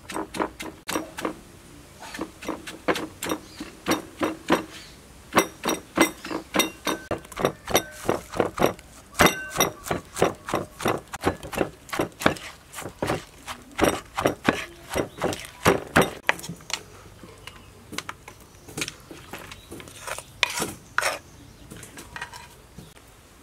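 Pestle pounding green papaya salad in a mortar: quick knocks and clinks about two or three a second, thinning out after about seventeen seconds.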